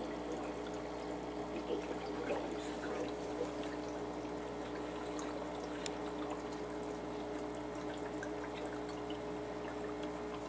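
Aquarium filter running: water steadily trickling and splashing into the tank, over a steady hum.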